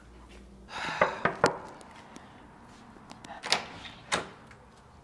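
Rustling with a couple of clicks about a second in, then two sharp strikes on a door about half a second apart.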